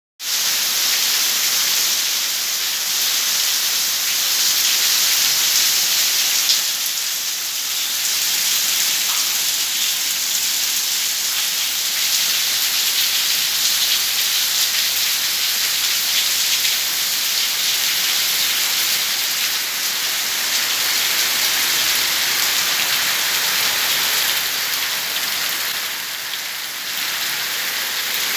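Heavy rain falling steadily and splashing on tiled paving, gravel and plants: a dense, even hiss.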